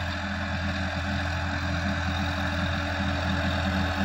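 Sonalika DI-50 RX tractor's diesel engine running steadily under load as it pulls a tillage implement through the soil.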